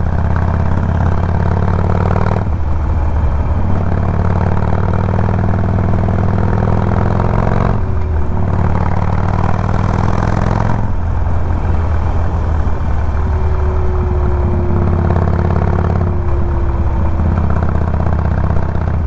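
Harley-Davidson Sportster 1200 Forty-Eight's air-cooled V-twin engine running on the move, through a flap-valve exhaust. Its note changes several times as the rider works the throttle.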